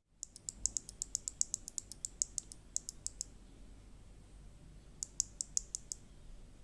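Keys of a modded RK84 mechanical keyboard being typed in quick succession, sharp bright clicks about six a second, stopping for a couple of seconds before a shorter run of keystrokes.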